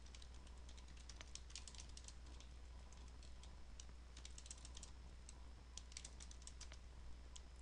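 Computer keyboard typing: uneven runs of faint keystrokes with short gaps between them, over a faint steady low hum.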